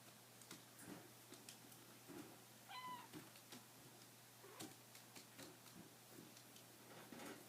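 A kitten mews once, a short high cry about three seconds in, amid faint scattered taps and rustles.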